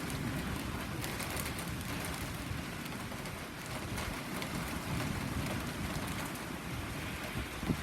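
Steady rain falling and pattering on surfaces, with scattered taps of drops and a single short thump near the end.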